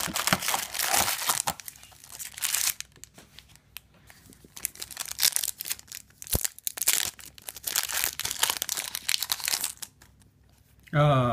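Foil trading-card booster packs crinkling as they are handled and pulled from the box, and one pack being torn open, in irregular rustling bursts with short pauses.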